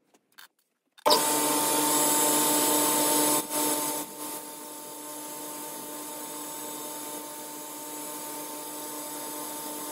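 Boxford metal lathe running with a steady whine while a boring tool cuts the inside of a spinning brass ring, chips flying. The sound comes in abruptly about a second in, is louder for the first couple of seconds, then settles lower from about four seconds in.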